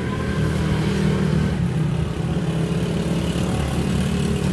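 Motor vehicle engine running steadily nearby: a low, even hum of road traffic.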